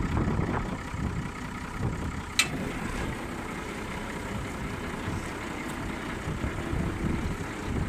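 Farm tractor engine running steadily while pulling a rear blade through the potato rows, with one sharp click a little over two seconds in.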